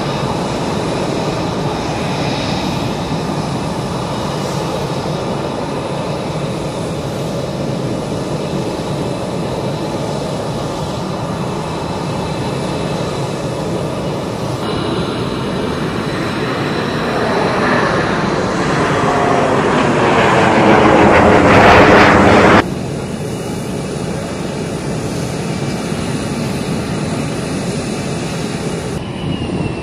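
Fighter jet engine noise: a steady jet roar that swells as a jet draws closer, with a sweeping, phasing sound as it gets louder. It peaks about 22 seconds in, then cuts off abruptly to a quieter steady jet roar.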